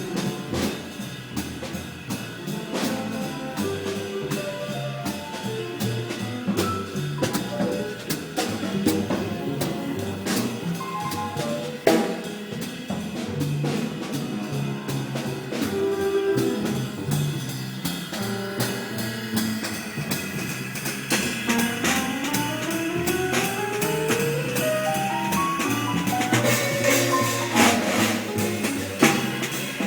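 Jazz piano trio playing: acoustic piano, double bass and drum kit, with a long rising run of notes about two-thirds of the way through and busier cymbal and drum strikes near the end.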